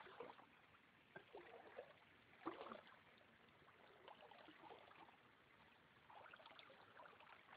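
Near silence with faint river water sounds: scattered small splashes and trickles, one a little louder about two and a half seconds in.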